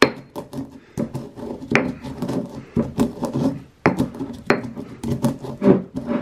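Stone pestle crushing and grinding black peppercorns in a solid stone mortar: an irregular run of knocks with scraping in between.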